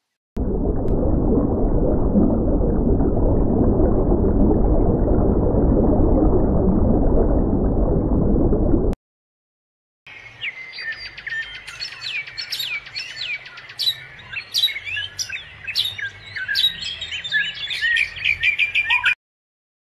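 A loud, dense, muffled noise that cuts off at about nine seconds. From about ten seconds on, birds chirp quickly and repeatedly in short high notes and trills, many overlapping, until they stop abruptly near the end.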